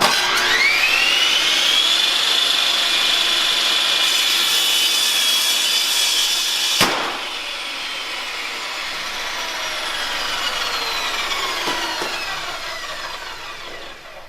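Bosch REAXX table saw motor spinning up with a rising whine and running steadily, then a single sharp bang about seven seconds in as the flesh-detection system fires on contact with a sausage and drops the blade below the table. The motor then coasts down with a slowly falling whine.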